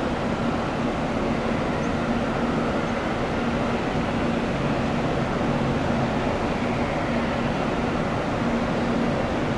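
Airbus A320 twin jet engines at takeoff thrust during the takeoff roll: a steady rushing jet noise with a faint low hum under it.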